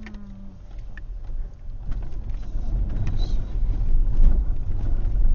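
Car driving slowly over a rough dirt track: a low rumble of engine and tyres that builds steadily louder, with a few light knocks.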